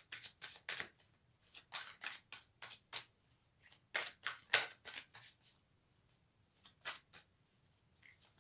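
A deck of tarot cards shuffled by hand: quick runs of soft crisp card strokes for about the first five seconds, then two more strokes after a short pause.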